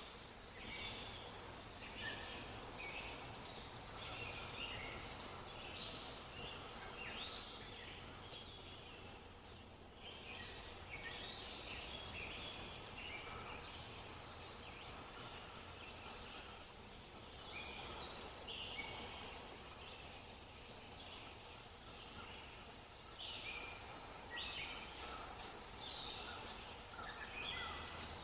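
Small birds chirping and twittering: a dense run of short, high chirps with a few quieter stretches, over a faint steady background hiss.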